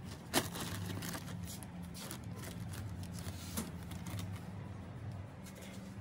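Loose plastic wrapping film on a window air conditioner crinkling and rustling, with a sharp tap about half a second in and a smaller one near the middle, over a steady low hum.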